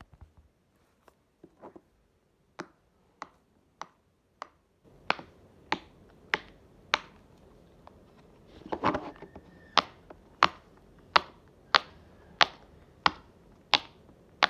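Silicone waffle pop-it fidget toy being popped bubble by bubble, each press a sharp pop. A few faint, scattered pops at first, then a steady run of pops about one and a half a second, with a short rustle of handling about nine seconds in.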